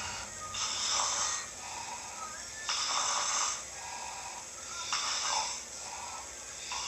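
A person snoring: loud, rasping breaths about every two seconds, three in all, with a fourth beginning near the end, and quieter breathing between them.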